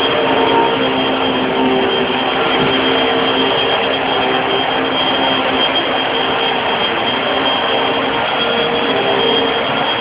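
Vacuum cleaner running steadily, its motor giving a constant high whine over the rush of air.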